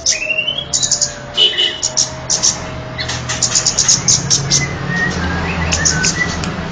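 Bird calls from a lure recording meant to attract the kemade bird: fast runs of high, ticking chatter notes, broken by a short rising whistle at the start and a few brief whistled notes in the second half.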